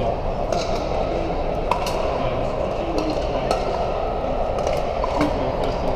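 Pickleball paddles striking plastic balls across many courts: short, sharp pocks at irregular intervals over a steady din of voices in a large, echoing hall.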